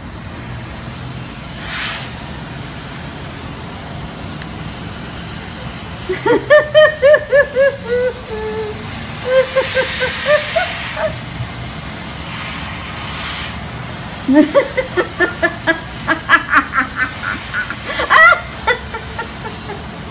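Children laughing in quick, repeated bursts, in two long fits, over a steady low hum.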